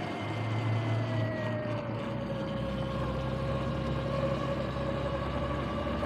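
Sur-Ron X electric dirt bike under way: the whine of its electric motor and jackshaft drive, a few steady tones that slowly fall in pitch over the first few seconds as it eases off, over a steady running hiss.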